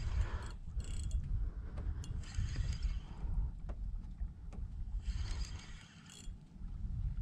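Spinning reel being cranked in short spurts, its gears whirring, as a hooked fish is reeled in. A steady low rumble of wind on the microphone runs underneath.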